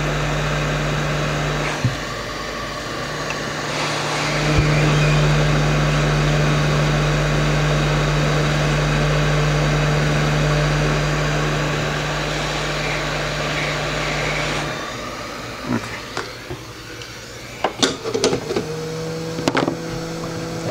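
A small electric fan motor runs steadily with a low hum and airy hiss, growing louder about four seconds in, then cuts off about fifteen seconds in. A few sharp clicks and taps from handling tools and the board follow.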